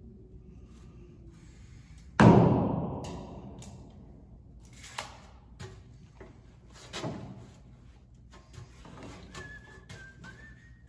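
One loud bang about two seconds in that rings out and dies away over a second or two, followed by a few lighter knocks.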